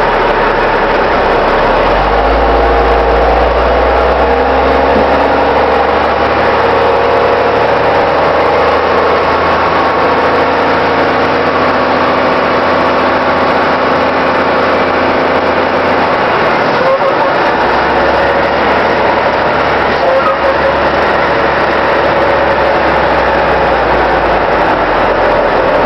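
Garbage truck's diesel engine running as the truck drives, a steady loud rumble with engine hum over road noise; the engine note briefly drops about two-thirds of the way through, then picks up again.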